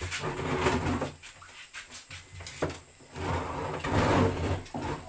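Hard plastic scraping and knocking as the lid and tub of a twin-tub washing machine are handled, in two stretches: one at the start and a louder one about three seconds in as the round lid is pressed into place.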